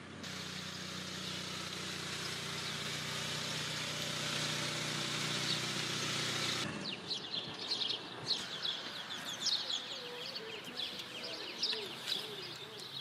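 A steady low hum with a hiss, swelling slightly, that cuts off abruptly about two-thirds of the way through. Then small birds chirp repeatedly in quick, high, falling notes.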